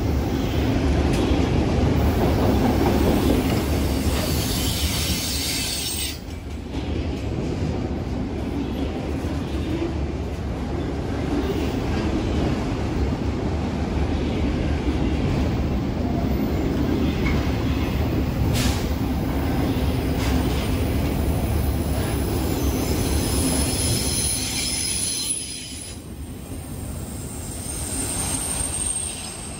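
Autorack freight cars rolling past close by, with a steady rumble of steel wheels on the rails. A high-pitched wheel squeal rises over it in the first few seconds and again near the end.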